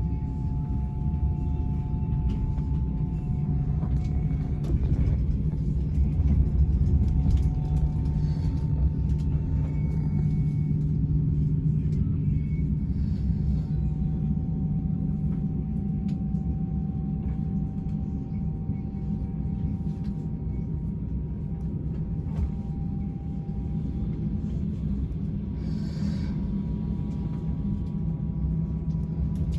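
Steady low rumble of a moving train heard from inside the carriage, with a few faint steady tones above it.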